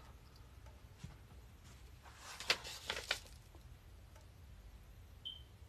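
Faint rustling of a paper sewing-pattern envelope being handled on a cutting table, a few soft brief rustles about two to three seconds in. A short, faint high beep sounds near the end.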